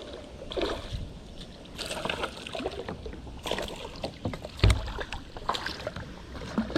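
Handling noises in a kayak: scattered knocks and rustles against the hull, with one heavier thump a little under five seconds in.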